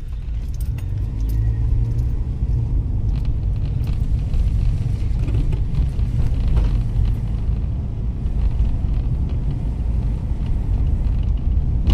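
A car driving along a paved road, heard from inside the cabin: a steady low engine and road rumble, with a faint shift in engine pitch during the first few seconds.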